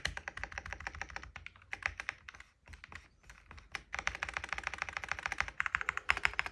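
Keys of a Feker IK75 mechanical keyboard being pressed in quick runs of clicks, with a short pause about halfway through, then a faster, denser run of key presses.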